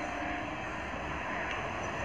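Suburban electric multiple-unit (EMU) local train approaching along the track, a steady rumble of the oncoming train.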